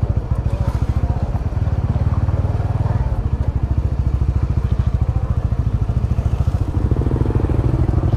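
Honda Winner X's 150 cc single-cylinder engine running at low revs as the motorcycle rolls slowly, its firing pulses steady and even.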